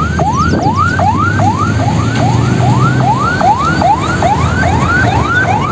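Siren yelping in quick rising whoops, about three a second, each dropping back sharply, over the low steady running of a tanker truck's engine.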